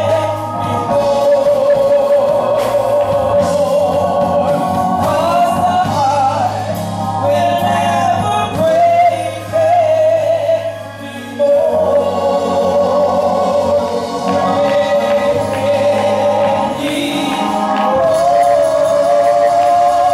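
Two women singing a gospel song together through microphones, their voices held with vibrato over a steady low accompaniment, with a short break in the singing about eleven seconds in.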